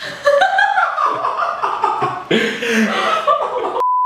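Men laughing, then an abrupt cut near the end to a steady 1 kHz test tone, the reference tone played with colour bars.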